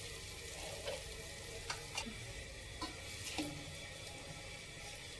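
Meatballs in thick sauce sizzling faintly in a metal wok, with a spatula scraping and clicking against the pan about five times in the first few seconds.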